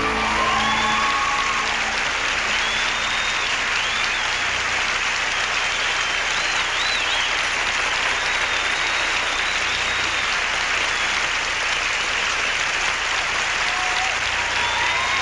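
Crowd applause at a steady level, with a few short whistles near the start and again near the end.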